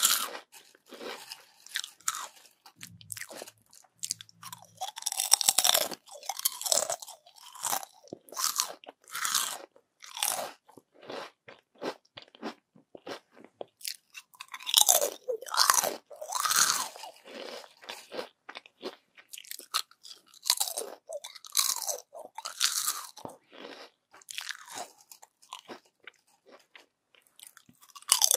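Close-miked crunching and chewing of crispy yam chips: irregular crackling bites and chews, with a short lull about halfway through.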